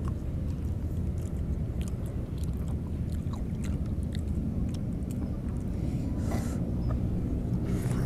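Chewing and biting into juicy orange segments close to the microphone, with small wet mouth clicks and two short slurping sounds, one past the middle and one near the end. A steady low rumble runs underneath.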